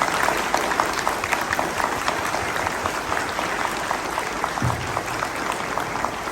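Audience applauding, strongest at the start and thinning out toward the end.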